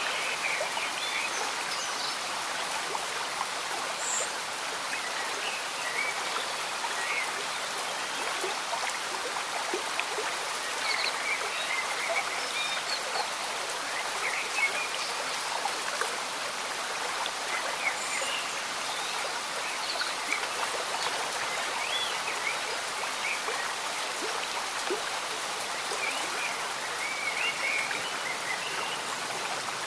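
Slow-moving stream bubbling and gurgling steadily under gentle rain, with scattered small drips and plops throughout.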